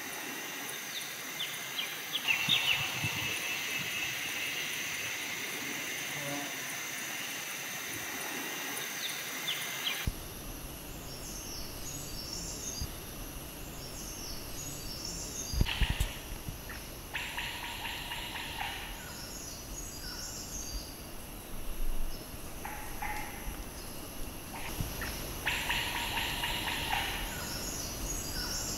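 Forest ambience of insects and birds: a steady high insect drone with occasional calls. About ten seconds in the background changes abruptly, and after that birds call in short runs of chirps several times.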